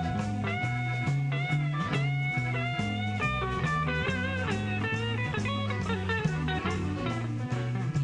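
Live blues band playing instrumentally: an electric guitar lead with bent, sliding notes over a steady, repeating bass line and drums.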